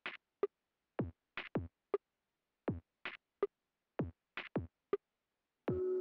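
Background music: a sparse electronic drum beat of kick drums and sharper snare-like hits, with sustained synth chords coming in near the end.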